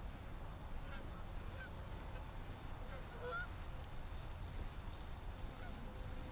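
A flock of geese flying over, honking faintly in a few short calls, over a steady low wind rumble on the microphone.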